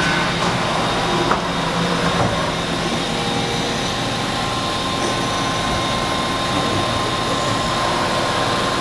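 Mori Seiki SH-50 horizontal machining center running: a steady machine hum and whine from the spindle and axis drives, with a single sharp click about a second in.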